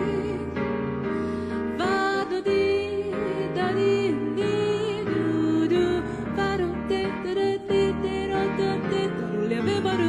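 Jazz band playing an instrumental passage, with sustained melody notes over chords.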